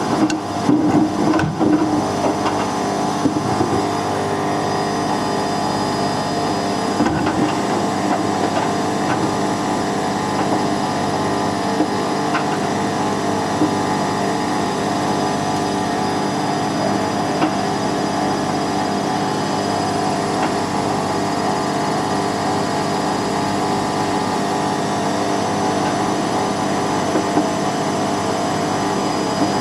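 Whirlpool WWDC 7210/1 washing machine running, its drum turning with a steady motor hum. There are a few knocks in the first couple of seconds and occasional faint clicks after that.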